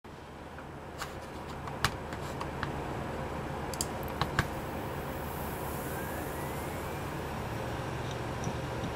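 WD Caviar Blue hard drives running with a steady hum and a scatter of sharp clicks in the first half. About six seconds in comes a faint rising whine, and the hum grows a little stronger afterwards, as with a drive spinning up again. The drives are spinning up and down repeatedly during use.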